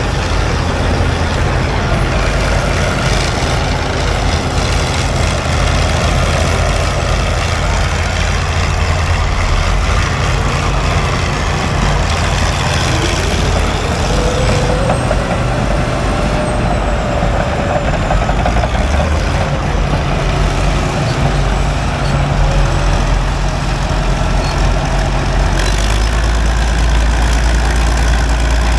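Heavy engine of large machinery running steadily, with a whine that rises in pitch about halfway through.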